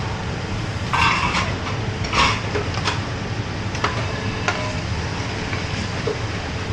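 Steady low rumble of a commercial kitchen's lit gas range, with a few short metal clinks and scrapes of steel ladles against aluminium pans, the strongest about one and two seconds in.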